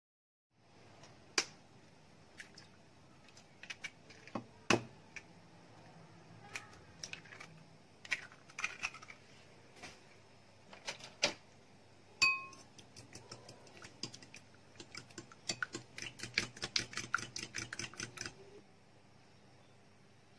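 Scattered clinks and taps of utensils and glass bowls, with one sharp strike about twelve seconds in that makes a glass bowl ring. Near the end comes a fast run of light clicks for about three seconds: eggs being beaten in a glass bowl.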